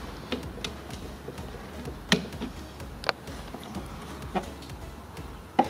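About six sharp, light clicks and taps, spread irregularly, from small pliers and fingers working a hose clamp and coolant hose on a throttle body, over a low steady hum.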